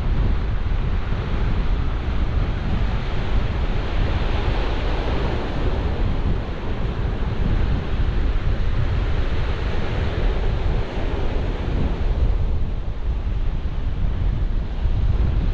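Sea surf breaking and washing on a shingle beach, the hiss swelling and easing, with strong wind buffeting the microphone in a steady low rumble.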